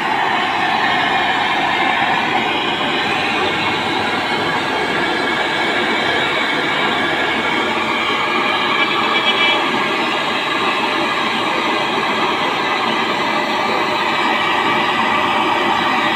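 Handheld gas-cartridge torch burning with a steady hiss as its flame heats an aluminium AC pipe fitting for brazing.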